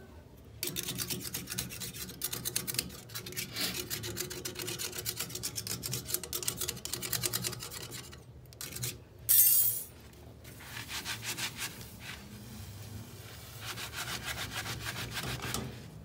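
Rapid rubbing and scraping strokes on a refrigerator's metal tubing, coming in bouts, with one short, loud hiss about nine seconds in.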